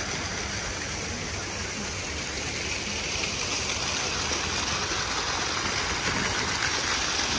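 Small ornamental fountain jets splashing into a shallow water channel: a steady rush of falling water.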